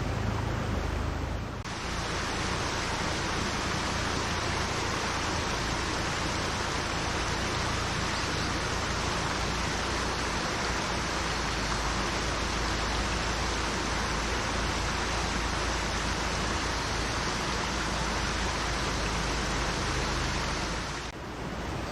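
Steady rushing water noise, even and without rhythm, which starts abruptly about two seconds in and stops abruptly near the end.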